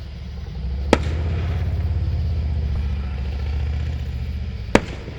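Two firework bangs about four seconds apart, the first trailing off in an echo, over a low steady rumble.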